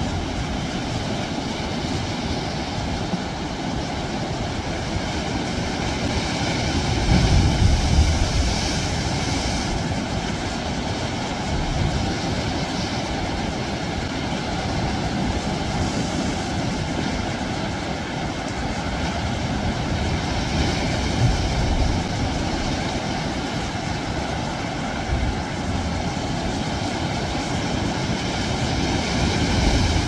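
Sea waves surging and breaking over rocks: a steady rush of surf, with a louder surge about seven to nine seconds in and another near the end.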